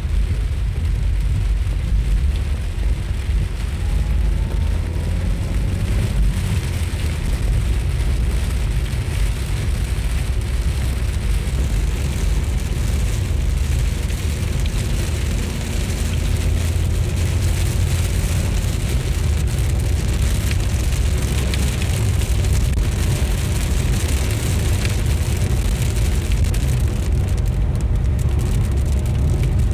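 Steady car engine and tyre rumble heard inside the cabin while driving on a wet road, with rain hitting the windscreen.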